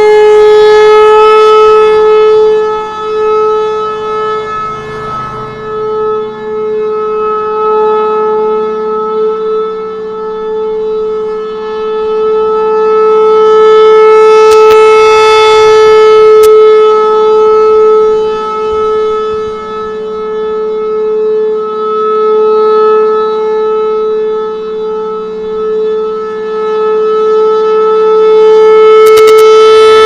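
Federal Signal Thunderbolt 1000 rotating civil defence siren sounding a steady single-pitched alert tone during a test. It swells loud each time the rotating horn points toward the listener, about every 15 seconds, and fades as it turns away, with a few sharp ticks near the loudest moments.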